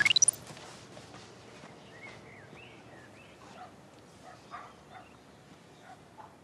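A sharp rising sweep right at the start, then a girl's faint, broken sobbing and whimpering in short catches.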